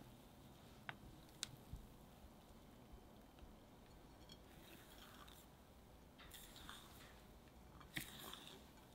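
Meringue being folded into chocolate chiffon cake batter in a glass bowl. There are a couple of light clicks of the whisk against the glass in the first second and a half, then soft, wet scraping and squishing as a silicone spatula works through the batter.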